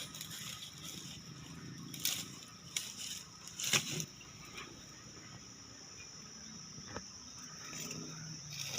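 Insects droning steadily in rainforest undergrowth, with a few short rustles and clicks of handling noise, the loudest nearly four seconds in.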